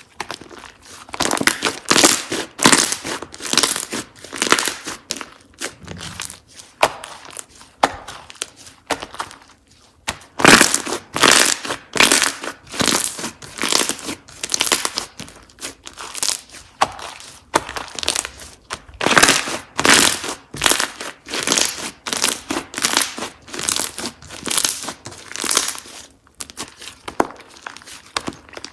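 Slime being squeezed, stretched and pressed by hand, giving runs of short crackling clicks and squishes in irregular bunches, with brief pauses between handfuls.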